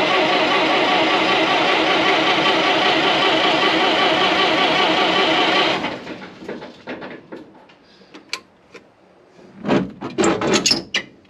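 The 1927 White dump truck's horn sounding in one long, steady, buzzing blast that cuts off about six seconds in, showing the horn works. Faint clicks and handling noise follow.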